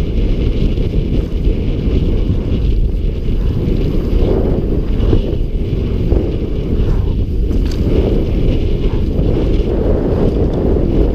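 Wind buffeting a helmet-mounted camera's microphone during a fast mountain-bike descent, mixed with rumble and rattle from the tyres and bike on a dirt trail. The noise is loud and steady throughout.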